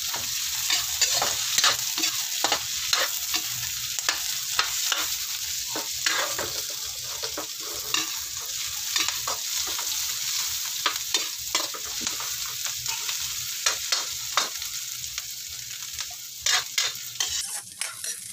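Garlic, onion and green chillies sizzling as they are sautéed in hot oil in an aluminium wok. A metal spatula scrapes and clicks against the pan at an irregular pace as they are stirred.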